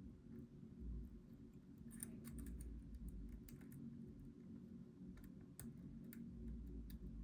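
Faint, irregular small clicks of a lock pick working the pin stacks inside a Goal V18 pin-tumbler lock, over a low steady hum.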